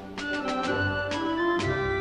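Instrumental background music with sustained keyboard chords over a steady beat.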